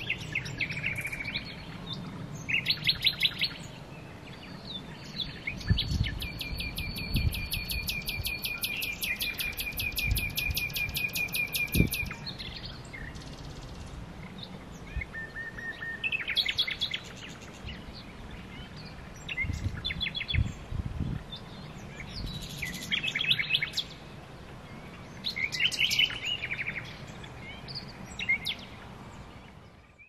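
Common nightingale singing in separate phrases with pauses between them, one a long run of rapidly repeated notes lasting several seconds.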